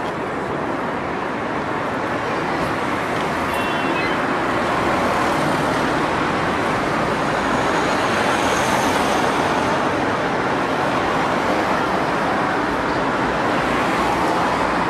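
Steady road traffic noise, a continuous wash of passing vehicles, growing a little louder after a few seconds.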